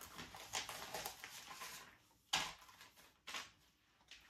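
Egg roll wrappers being handled and taken from the stack: soft rustling and crackling, with two sharper clicks about two and three seconds in.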